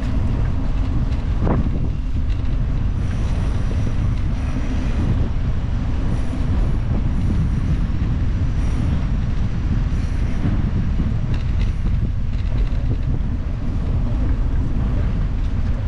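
Steady low rumble of a bicycle ride: tyres rolling over the paved boardwalk and wind on the microphone, with faint thin high tones coming and going.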